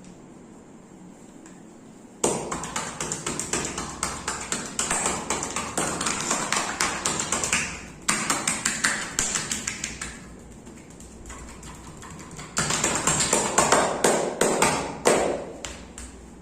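Hands tapping and slapping rapidly on bare skin in a percussive massage, about five quick strikes a second in three runs, the last run the loudest.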